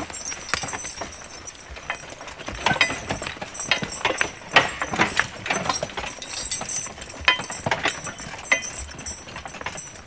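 Draft horses' hooves clopping and knocking irregularly as the team walks a tandem log wagon around in a tight turn.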